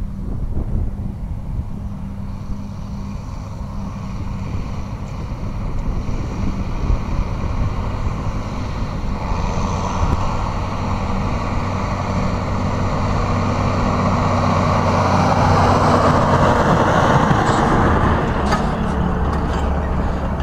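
John Deere tractor running under load as it hauls a full silage trailer past, growing louder as it comes near and easing off again. About three-quarters of the way through this gives way to the steady running of a Claas forage harvester at work in the field.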